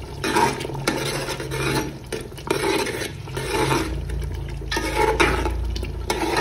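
A spoon or spatula stirring a pot of chicken masala, scraping against the pot in a series of strokes, roughly one a second.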